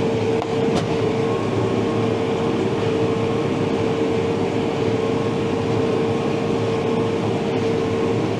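New Holland Workmaster tractor running under load while pulling a small square hay baler, a steady mechanical drone with a constant whine.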